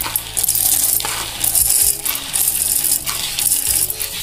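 Roasted, skinned peanuts poured from a plastic bowl into a stainless-steel mixer-grinder jar, rattling against the metal in uneven spurts.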